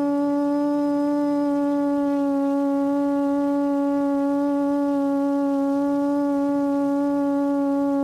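QAV400 quadcopter's Lumenier 1100kv brushless motors and APC 8x4.5 propellers running at a hover, a steady hum on one pitch with many overtones.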